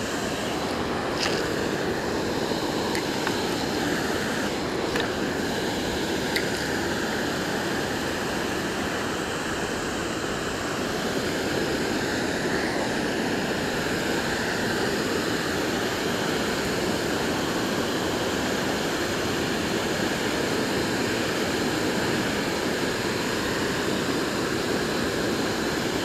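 Steady rush of water pouring over a low weir dam, with a few faint clicks in the first several seconds.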